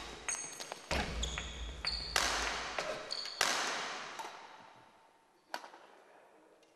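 Loud, echoing thuds in a sports hall, three of them about a second apart, with short high squeaks in between. They fade out, and a single faint knock follows near the end.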